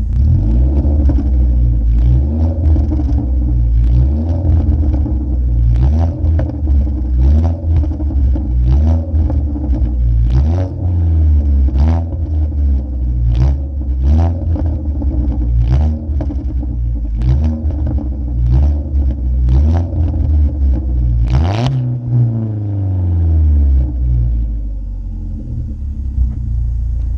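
2015 Ford Focus SE's 2.0-litre four-cylinder with a muffler delete, revving up and falling back over and over, about once every second and a half, with sharp crackles and pops from the exhaust. Near the end the revs drop and it settles to a steadier low drone.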